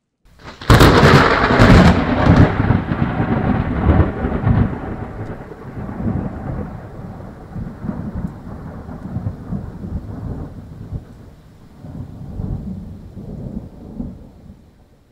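Thunder: a sharp crack a little under a second in, with a second crack right after it, then a long rolling rumble that swells a couple more times and fades away near the end.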